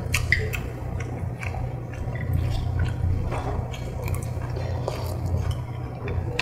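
Close-miked eating of pork-and-rice soup: chewing, and metal spoons and chopsticks clicking against the bowls now and then, over a steady low hum.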